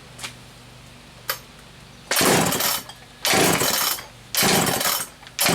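Old Poulan 306A two-stroke chainsaw being pull-started on a little gas squirted into the carburetor. Three short loud bursts as the starter cord is pulled, then it catches near the end and runs.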